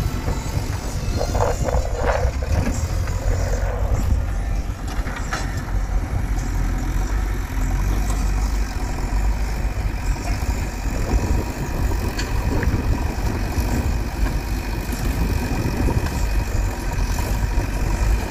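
Diesel engines of a JCB backhoe loader and a Sonalika tractor running steadily while the loader works, loading soil into the tractor's trolley. About a second in there is a short, rough noisy patch as the bucketful of soil is tipped into the trolley.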